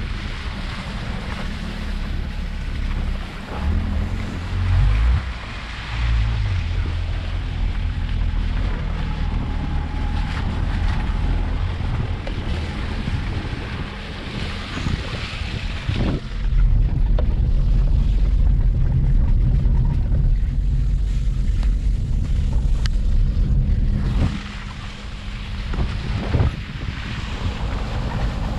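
Chevrolet Prisma 1.4 car driving slowly along a rough, muddy dirt track, its engine running steadily under heavy wind rumble on an outside-mounted microphone. The rumble grows louder for several seconds past the middle.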